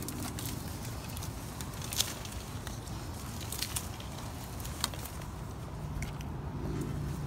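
Scattered sharp crackles and clicks of dry reeds and stems being brushed and trodden through, over a low outdoor rumble. A steady low engine hum of a passing car comes in near the end.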